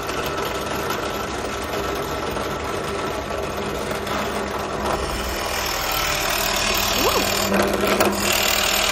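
Pillar drill running steadily while a large Forstner bit bores a hole into a flat beech block. The cutting grows louder about halfway through as the bit sinks into the wood.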